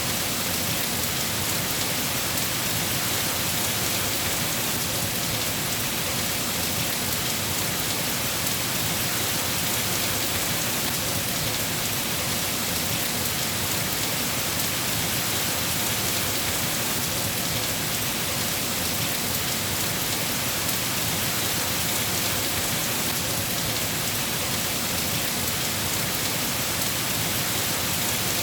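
Steady, heavy rain falling, an even hiss of many drops with no breaks or sudden strikes.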